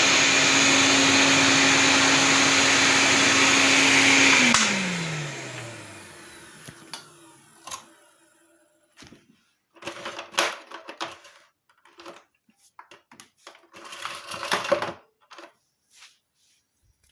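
Soviet Raketa vacuum cleaner motor running with a loud, steady whine, then switched off about four seconds in; its pitch falls as the motor spins down and the noise fades over a couple of seconds. Scattered knocks and clatter from handling the machine follow.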